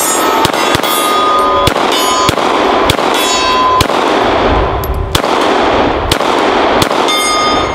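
9mm Glock 19 pistol firing about a dozen shots at an irregular pace, with the steel targets clanging and ringing on several of the hits.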